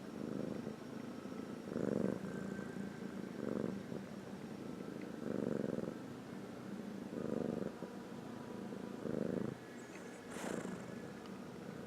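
A sleeping pet snoring in rhythmic low, rough breaths, about one every two seconds. A short sharp noise comes about ten seconds in.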